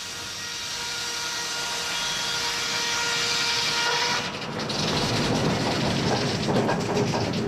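Sawmill machinery running: a steady whine with hiss grows louder over the first few seconds. About four seconds in it gives way to a rapid, loose rattle and clatter as a sawn board is moved along the mill's carriage and rollers.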